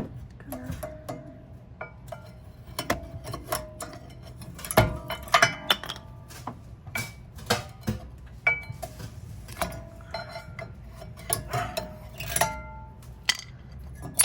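Repeated metal clinks, knocks and rattles, several of them leaving a short ringing tone: brake pads and their steel clips being worked out of the caliper bracket and handled.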